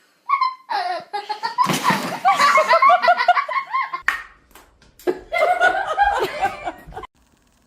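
People laughing hard in repeated bursts of breathy, pulsing laughter, with a short pause about four seconds in before a second bout.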